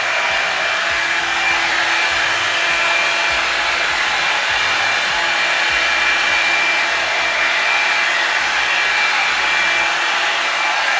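Revlon One-Step hair dryer brush running steadily: a high, even motor whine over the rush of blown air.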